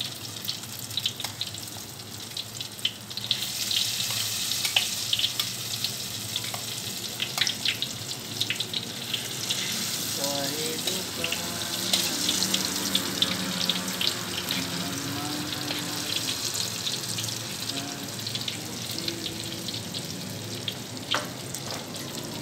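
Battered tempe deep-frying in hot oil in a wok, the oil sizzling steadily with many scattered sharp pops and crackles.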